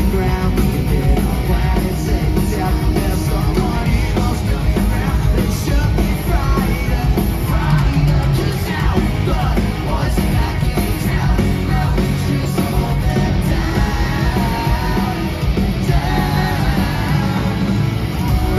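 Pop-punk band playing live in an arena, with electric guitars and a singer, heard from among the crowd.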